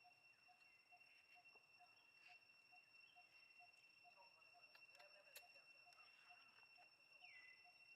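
Near silence: faint outdoor ambience with a steady high-pitched tone and a soft, regular pulse about twice a second, and a few faint clicks.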